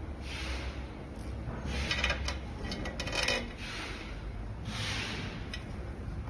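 Hands handling parts of a device during a battery swap: rubbing and scraping in four short swells, with a few light clicks.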